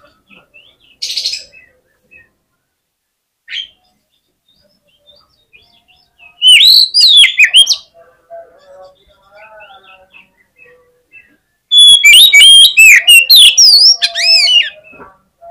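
Oriental magpie-robin (kacer) singing in full, aggressive song: two loud bursts of rapid, varied whistled notes that swoop up and down, with quieter scattered notes between them.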